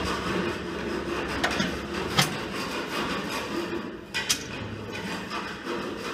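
Light metallic clicks and clinks as a steel circular saw blade and its backing nuts are handled and fitted onto the boss bolts of a swingblade sawmill hub. There are a few separate clicks, two of them close together about four seconds in, over a steady low background noise.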